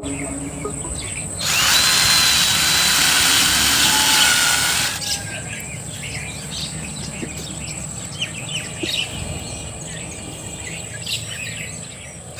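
A handheld power tool, likely a drill working bamboo, runs with a whine for about three and a half seconds starting a second and a half in, then stops. Faint chirps and light ticks follow.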